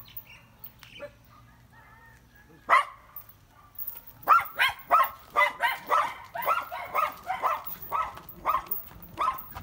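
Dog barking: one bark near three seconds in, then a quick run of barks, about three a second, from about four seconds in.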